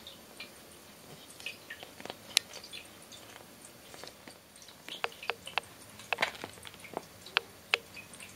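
A kitten biting and chewing the cloth of a zabuton floor cushion: irregular sharp little clicks and soft rustles of teeth and mouth working the fabric, busiest from about five to eight seconds in.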